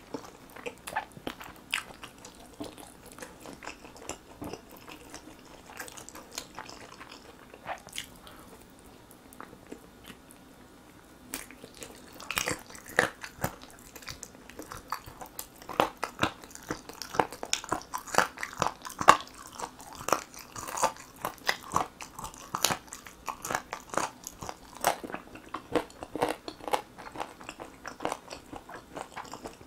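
A person chewing and biting sauce-glazed grilled chicken drumstick meat close to the microphone. The chewing is sparse at first, goes quieter around ten seconds in, then becomes quick and dense.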